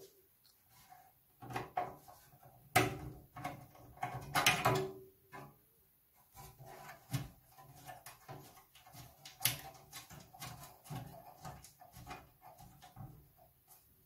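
A screwdriver and a small screw clicking, scraping and knocking against the IBM PC 5150's motherboard and metal chassis as the screw is placed and driven in. A sharp knock comes about three seconds in and a cluster of louder knocks around four to five seconds in, then a run of smaller clicks.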